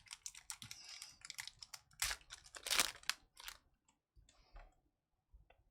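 A trading-card pack's wrapper being crinkled and torn open while the cards are handled: a quick run of crackles and clicks for about three and a half seconds, then a few faint ticks.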